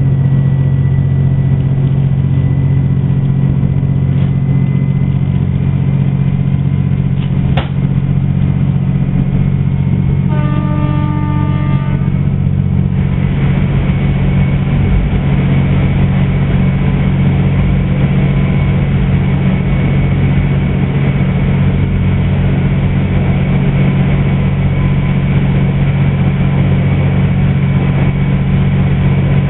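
Diesel railcar running, heard from inside the passenger car, with a steady low engine drone. About ten seconds in, the train's horn sounds once for about a second and a half. Soon after, the running noise turns louder and harsher as the train enters a tunnel.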